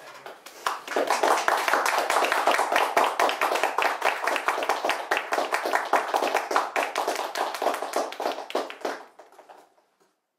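Applause from a small audience: many separate hand claps that build up within the first second, hold steady, then die away near the end.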